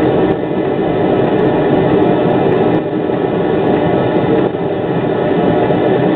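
Škoda 03T Anitra low-floor tram running through a track junction, heard from the driver's cab: a steady rumble of wheels on rail and running gear with no pauses.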